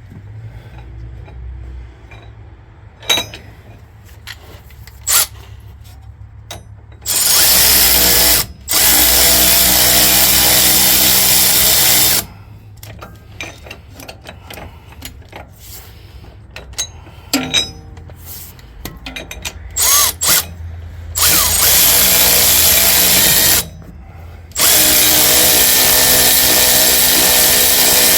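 A power tool runs in four long bursts of a few seconds each, driving in bolts on an air bag suspension bracket. Short metallic clicks and clinks come between the bursts.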